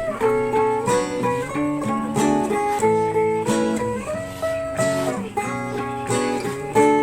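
Background music: an instrumental passage of plucked acoustic guitar with no singing.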